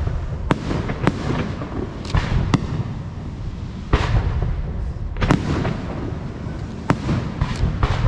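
Fireworks display: aerial shells bursting in sharp, irregularly spaced bangs about once a second, over a continuous low rumble and crackle.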